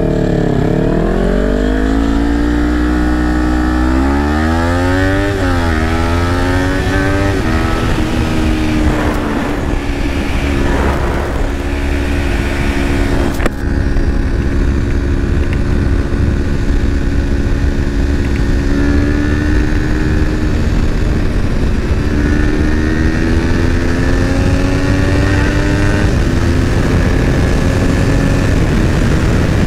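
Parallel-twin sport motorcycle engine accelerating through the gears. The revs climb and fall back at each upshift over the first several seconds, then settle to a steady cruise under heavy wind rush and rise gently again later on. A single sharp click comes about halfway through.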